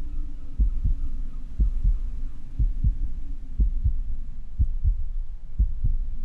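Heartbeat sound effect: a low double thump repeating about once a second, over a low steady drone.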